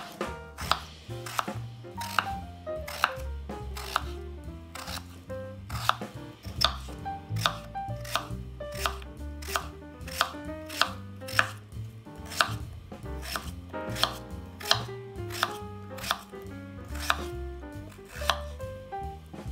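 Kitchen knife cutting through food on a cutting board in slow, even strokes, about one every three-quarters of a second, over soft background music.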